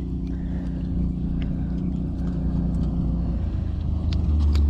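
Steady low motor drone that grows louder near the end, with scattered faint ticks over it.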